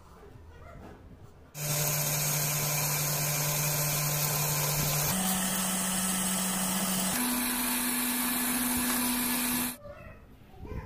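Bench drill press running while drilling holes through a leather sheath: a steady motor hum that starts about a second and a half in, steps up in pitch twice, and stops shortly before the end.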